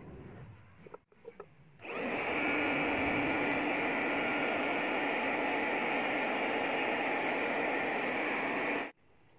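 Electric hot air gun switched on about two seconds in, blowing steadily, then switched off abruptly near the end. It is aimed at the freshly coated coils of a rewound circular saw stator, heating them. A few light knocks come just before it starts.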